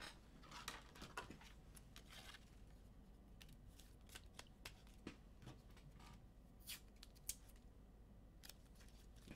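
Faint, scattered small clicks and light rustles of hands handling trading cards and plastic card holders on a tabletop, over a low steady hum.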